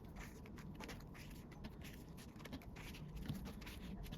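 Faint rustling and light taps of handling, as photocards are slid into the plastic pockets of a collector's binder.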